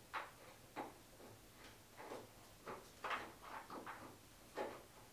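Quiet, irregular clicks and knocks of hand-worked parts inside a tractor bellhousing as the clutch release bearing assembly is fitted onto its shaft, with a quick run of knocks a little past the middle.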